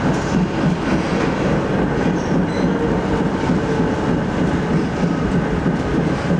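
ČKD Tatra KT8D5R.N2 articulated tram running along the track, heard from inside the passenger cabin: a steady rumble of wheels on rails and running gear.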